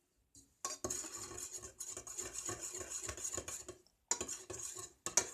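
A spoon stirring glue and cold water in a bowl, scraping and clinking against the bowl, with a short pause about four seconds in.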